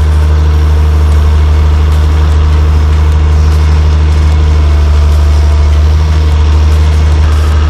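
Excavator's diesel engine running steadily with a strong low hum, as the bucket is being positioned. A faint higher steady whine comes in near the end.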